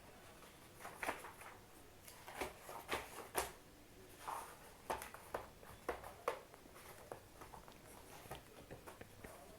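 Faint, irregular soft taps and rustles coming in short uneven runs.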